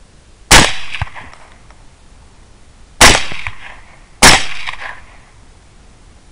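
Three rifle shots fired at a running feral boar: one about half a second in, then two close together near three and four seconds. Each shot is followed by an echo that dies away over about half a second, and a lighter crack comes just after the first.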